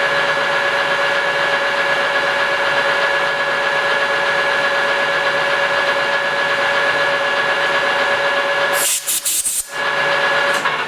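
Metal lathe running at a steady speed with a constant whine, taking a light boring cut in the centre hole of a steel shaft. About nine seconds in the sound briefly drops away with a few sharp high scratches, then the steady whine returns.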